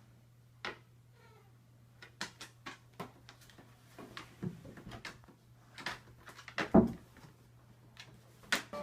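Scattered knocks and clicks over a steady low hum, with a heavier thump about seven seconds in.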